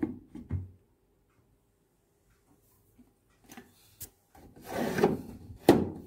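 Rubbing and handling noise on the plastic top of a top-load washing machine, then a sharp knock near the end as the pull-out detergent dispenser tray is pushed shut.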